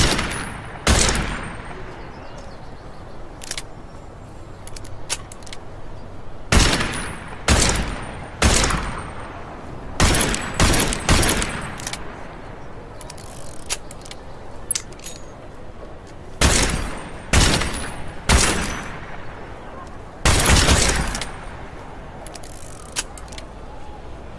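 Revolver shots fired one at a time and in quick runs of two or three, about a dozen in all, each a sharp crack with a ringing tail. Fainter clicks come between the shots.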